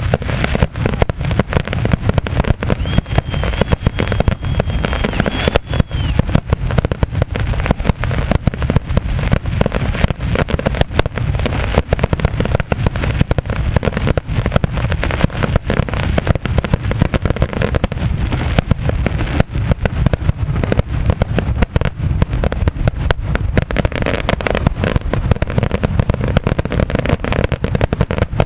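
Fireworks exploding in a dense, continuous barrage of bangs, many a second.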